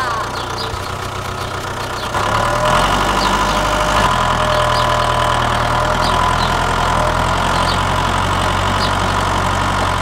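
Tractor engine running steadily, louder from about two seconds in, with faint short chirps about once a second.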